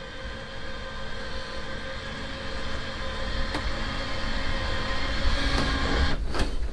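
A steady mechanical hum with a low rumble, slowly getting louder.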